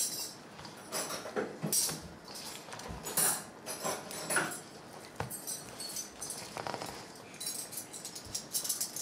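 A plastic scraper stirring a sticky cereal, marshmallow and pecan mixture in a large stainless steel mixing bowl: irregular scrapes, squishes and knocks against the bowl.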